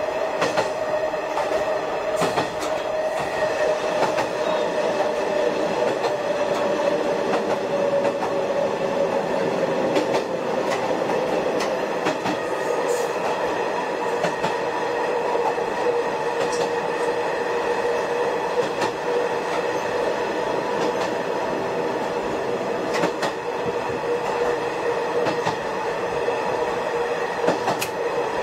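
Shigaraki Kohgen Railway SKR500 diesel railcar running along the line, heard from inside the car: steady running noise with a tone that slowly falls in pitch over the first half. Occasional sharp clicks of the wheels over rail joints.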